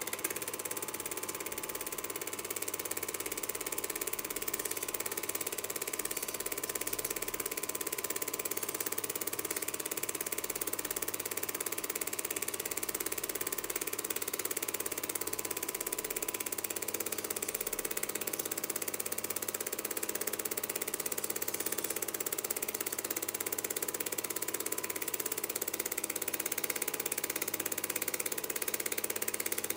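Film projector running steadily: the even chatter of its film-advance mechanism and its motor, with a faint steady whine.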